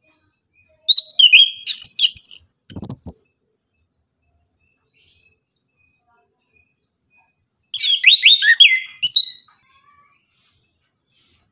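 Chestnut-capped thrush singing two short, loud bursts of rapid whistled notes that slide up and down in pitch. The first comes about a second in and the second about seven seconds later.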